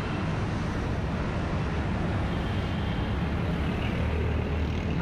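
Steady road traffic: cars and other vehicles passing continuously, a constant low rumble of engines and tyres.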